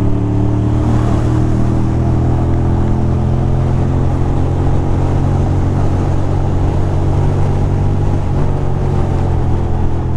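Ducati Monster 620's air-cooled L-twin engine running at a steady highway cruise, heard from the rider's seat.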